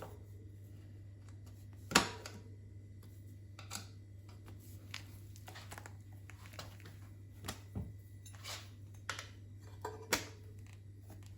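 Scattered clicks and knocks of a new bicycle tyre being worked onto its wheel rim by hand, with a sharp knock about two seconds in, over a steady low hum.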